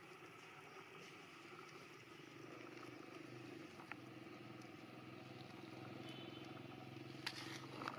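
A faint, steady engine drone that swells slightly through the middle, with a few sharp clicks about four seconds in and near the end.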